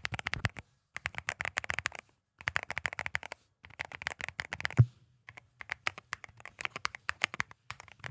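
Typing on a MonsGeek M1V3 mechanical keyboard: runs of rapid key clicks in bursts of about a second with short pauses between, showing off the sound of its switches. One louder low thump comes a little past the middle.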